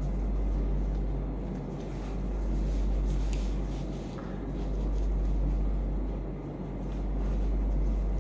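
A low, steady electric hum that swells and fades in a regular cycle about every two and a half seconds, with a few faint handling clicks.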